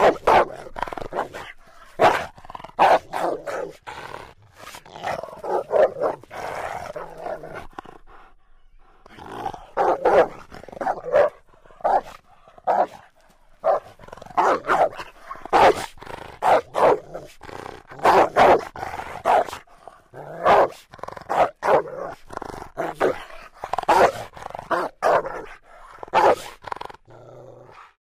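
Rottweiler barking over and over in irregular clusters of sharp barks, with growling between some of them and a short lull about a third of the way through.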